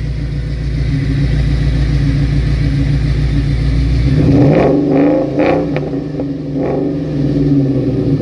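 2003 Mustang SVT Cobra's supercharged 4.6-litre V8 idling, then revved up and down several times about halfway through before settling back. The engine has a dead cylinder and is missing.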